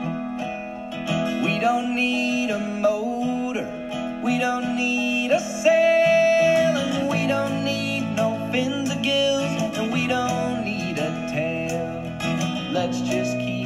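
Instrumental country-folk music led by acoustic guitar, with sustained and bending melody notes over it.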